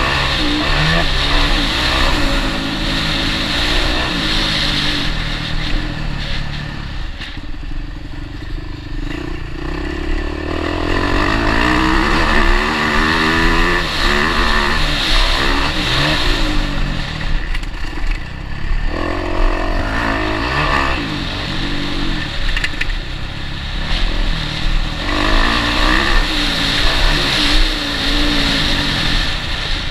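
Motocross bike engine heard close up from an on-board camera while riding. The revs rise and fall again and again as the rider accelerates and shifts, with sharp drops in revs about seven and nineteen seconds in.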